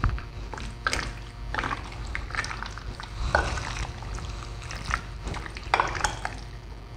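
A metal spoon stirring and turning raw chicken pieces in a thick, wet cornflour-and-egg marinade in a bowl: irregular wet stirring strokes with scrapes of the spoon against the bowl.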